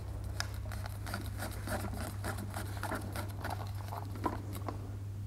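Light clicks and scrapes as an access-point mount is screwed by hand onto a carbon-fibre pole: a steady run of small ticks.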